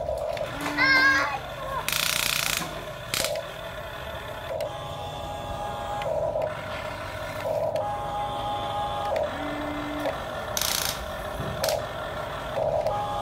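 Huina RC toy excavator's small electric motors whining in short start-stop spurts as the boom swings and the bucket digs and lifts. A short high rising chirp comes about a second in, and two brief hissing bursts come about two and ten seconds in.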